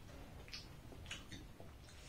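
Faint mouth sounds of someone chewing steamed veg momos (dumplings): a few soft wet smacks and clicks about half a second and a second in.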